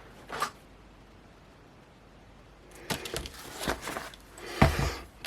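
Small parts and tools being handled on a hard work surface: a quiet pause, then from about three seconds in a run of clicks, rustles and light knocks, with one louder knock near the end.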